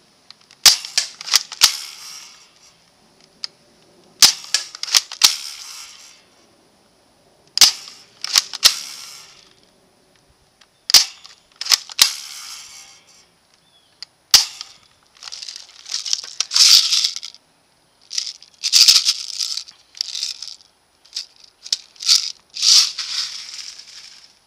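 Well M16A1 spring-powered airsoft rifle being shot again and again: sharp snaps in groups of two or three, with rattling handling noise between them and longer bursts of rattling in the last third.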